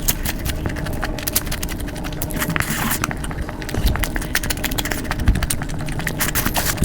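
Close-miked eating sounds: irregular chewing, crunching and mouth clicks over a low rumble.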